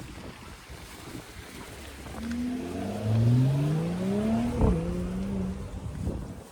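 A motor vehicle accelerating close by: its engine note climbs steadily for about two and a half seconds, drops abruptly with a knock like a gear change, then holds a lower pitch before fading into the traffic rumble.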